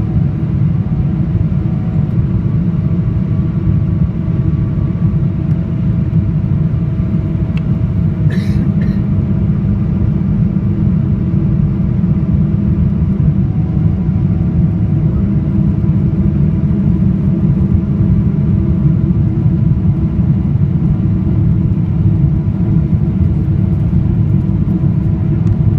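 Steady, loud low rumble of a Boeing 777-300ER cabin by the wing on approach with flaps extended: GE90 engine and airflow noise, with faint steady engine tones above it. A couple of brief clicks come about eight seconds in.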